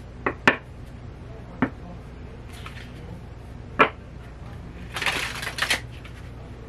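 A new deck of stiff tarot cards being hand-shuffled: a few sharp clicks and taps as the cards are knocked together, then a short rustling of sliding cards about five seconds in.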